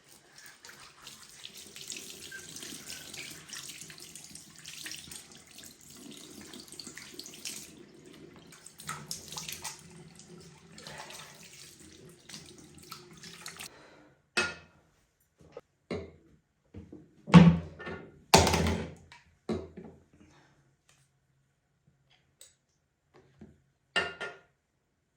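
Tap running into a kitchen sink for about fourteen seconds, then it stops and a few separate knocks and clatters follow, the loudest a few seconds after the water stops.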